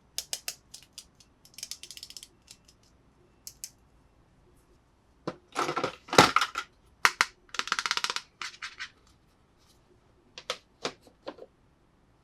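Small plastic toy pieces being handled: a series of sharp clicks and taps, with a few short rattling scrapes. The loudest click comes about halfway through.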